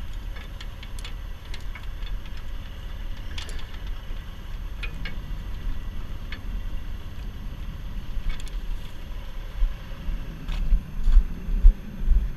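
A heavy truck's diesel engine idling steadily, with scattered sharp metallic clinks from a tow chain and shackle being handled. A few low thumps come near the end.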